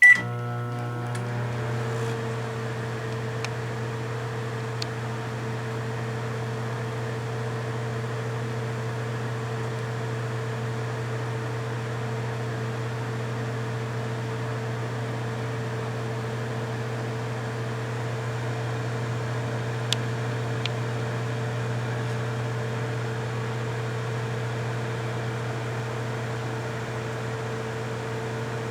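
Microwave oven started with a sharp beep, then running with a steady hum as it heats a stroopwafel, with a few faint ticks.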